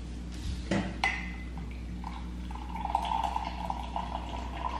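Coffee pouring from a French press into a mug: a steady stream from about two seconds in. Two light knocks come near the start.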